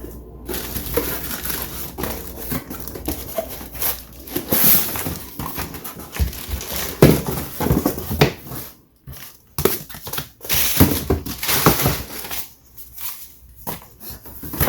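Packaging being handled during an unboxing: irregular crinkling and rustling of plastic and paper wrapping, with a few short knocks and brief pauses.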